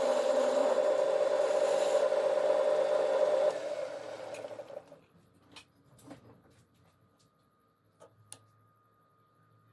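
Metal lathe running steadily with a motor whir, switched off about three and a half seconds in and winding down over the next second or so. A few light clicks and knocks follow.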